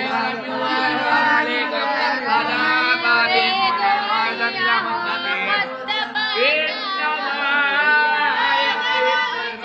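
Several hifz students reciting the Quran aloud at the same time in a chanting voice, each reading his own passage, so their voices overlap in a continuous jumble of recitation.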